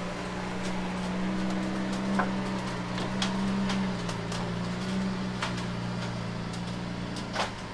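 Lamborghini Sián FKP 37's 6.5-litre V12 running at a low, steady idle while the car creeps up onto the transporter, with scattered sharp clicks and knocks over it.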